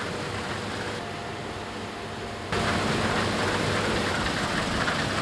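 New Holland CR9.90 combine harvester running steadily in a wheat field. The sound jumps suddenly louder and brighter about two and a half seconds in, then holds steady.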